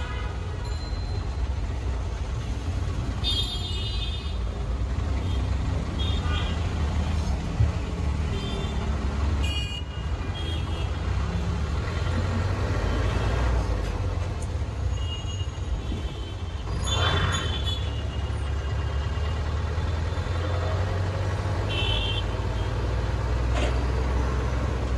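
Busy city road traffic: a steady low engine rumble, with several short horn toots scattered through it.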